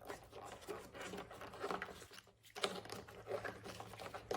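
Faint handling noise of a plastic taillight housing and its wiring connector: light rubbing and scattered small clicks, with a sharper click a little under three seconds in.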